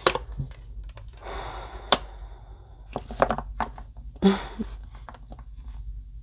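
Tarot cards handled on a tabletop: short rustles as cards slide through the hands. These are mixed with a series of sharp taps and clicks as the deck is gathered and tapped square, the loudest tap about four seconds in.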